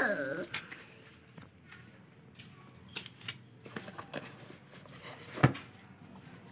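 Faint rustling and tapping of a cardboard shoe box and a child's sneaker being handled, with a sharper knock a little past five seconds in. A high voice trails off at the very start.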